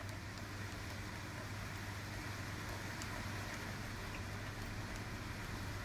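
A steady low hum with an even hiss behind it, unchanging throughout; no cutting or clear motor note stands out.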